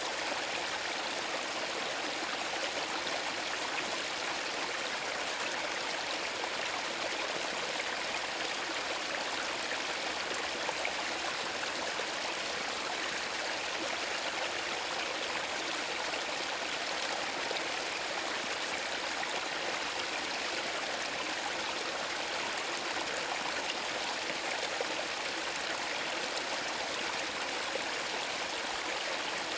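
Small woodland brook trickling and burbling over stones, a steady splashing rush of water that does not change.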